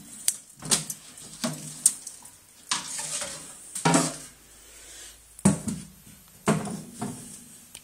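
A string of sharp knocks and clatters, roughly one a second, some loud, with quieter rustling between them.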